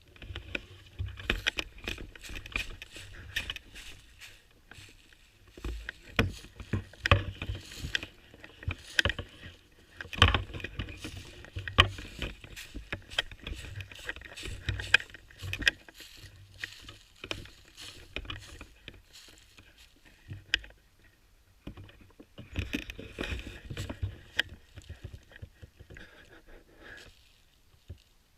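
Rustling and crunching with irregular clicks and knocks, as of a person moving on foot through dry leaves and brush. It comes in uneven clusters and stops about a second before the end.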